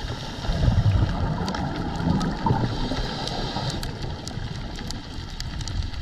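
Muffled underwater sound picked up through a camera housing: low rumbling water noise and gurgling of divers' exhaled bubbles, loudest about a second in, with scattered faint clicks.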